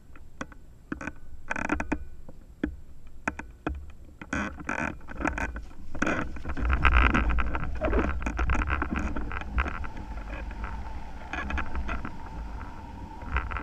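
Hang glider launch run heard from a microphone on the base bar: clattering knocks and footfalls on the wooden ramp, then wind rushing over the microphone, louder from about six seconds in as the glider gathers speed and lifts off. A steady tone comes in about ten seconds in.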